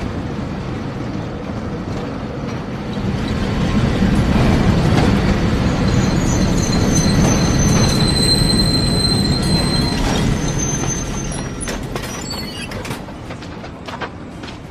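Electric rail car running on its tracks, growing louder from about three seconds in. High wheel squeal sounds from about five to ten seconds in, then the noise fades.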